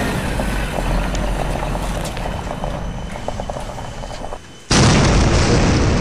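A steady low rumble, then after a brief dip about four and a half seconds in, a sudden loud explosion boom that carries on as a long rumbling blast. It is an added explosion sound effect.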